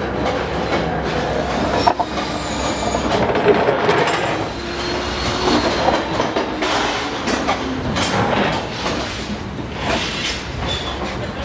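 Long steel rebar being slid and dragged along the steel table of a rebar bending machine: continuous metal scraping with clanks and short squeals of steel on steel.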